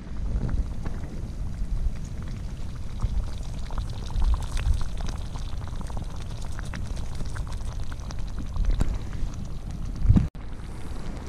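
A pot of thick stew bubbling over an alcohol stove: a steady rumble full of small, irregular pops and splutters, briefly broken off near the end.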